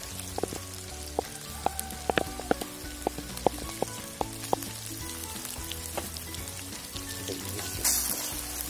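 Chicken and freshly added sliced onions sizzling in a steel pot over a wood fire, with scattered sharp pops, most of them in the first half. Background music plays underneath.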